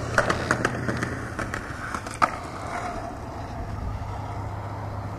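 Skateboard rolling on pavement, with a run of clicks and knocks over the first two seconds and a sharp clack a little over two seconds in, then a steady rolling noise.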